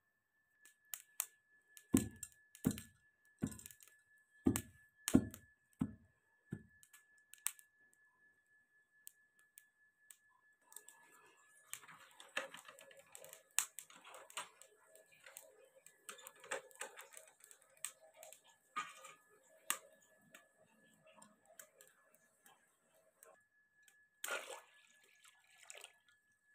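Soaked pearl millet being pounded in a mortar: about seven dull pestle thuds, roughly one every three-quarters of a second, a couple of seconds in. Later, a coal fire in a small iron stove crackles and pops steadily.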